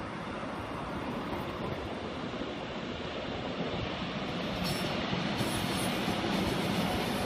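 Korail Line 1 electric commuter train running past on the tracks, a steady rail noise that grows louder as it comes by, with thin high squeals from the wheels joining in a little past halfway.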